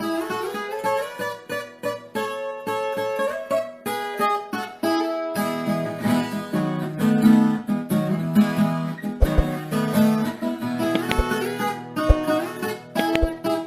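Background music: plucked acoustic guitar playing a quick run of notes, growing fuller with lower notes from about five seconds in.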